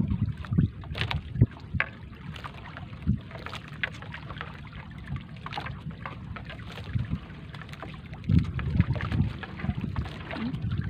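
Three-ply gill net being hauled by hand over the wooden gunwale of a small fishing boat: irregular knocks and short rustling, splashy sounds as the wet net comes aboard, over a steady low rumble.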